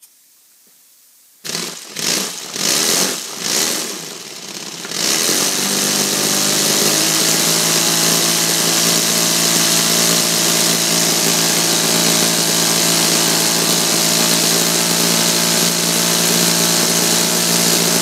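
3D-printed four-cylinder inline compressed-air engine driving a 10x5 propeller at 70 psi: a faint hiss of air, then about a second and a half in a few uneven surges, settling at about five seconds into steady high-speed running with a loud rush of air, around 3,400 rpm.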